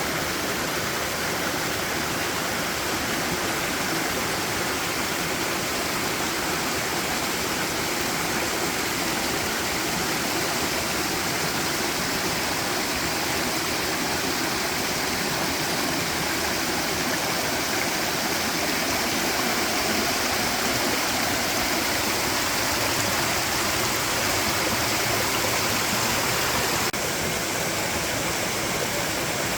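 Forest stream rushing steadily, an even, unbroken wash of water noise.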